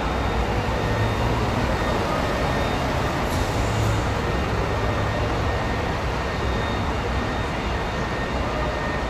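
Scania K410C coach's rear-mounted straight-six diesel running steadily as the double-decker bus drives off at low speed, a deep rumble with a low hum.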